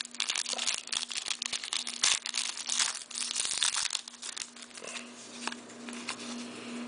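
A trading-card pack's plastic wrapper being torn open and crinkled between the fingers: a dense run of crackles for about four seconds, easing to softer rustling as the cards are handled.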